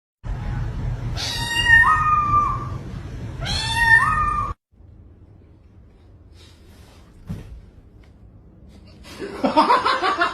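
A cat meowing twice, each meow long and drawn out, rising in pitch and then holding. It is followed by a quieter stretch and a busier jumble of sound near the end.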